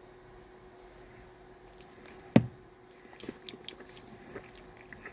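Hard sour candy being bitten and chewed: one sharp, loud crack a little over two seconds in, then small crunching clicks as it is chewed.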